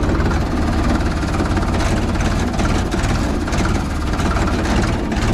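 Ford 3600 tractor's three-cylinder engine running steadily while the tractor drives along, heard from the driver's seat.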